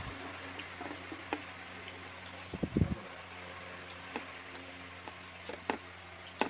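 Eating sounds: a short burst of chewing about two and a half seconds in and scattered small clicks as fingers mix rice on a plate, over a steady low hum.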